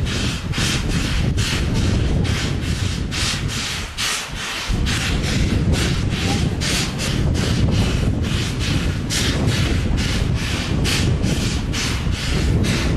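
Standing steam locomotive C11 123 with its steam-driven air pump working: short hissing strokes, about three a second, over a steady low rumble.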